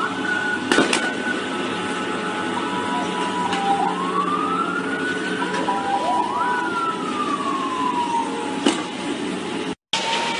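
Security-force vehicle siren sounding in irregular rising and falling glides over a steady street din, with a sharp bang about a second in and another near the end.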